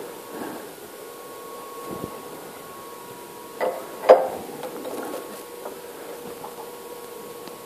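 Steady hum of a pillar drill's motor running, with two sharp metal knocks about three and a half and four seconds in, the second the louder.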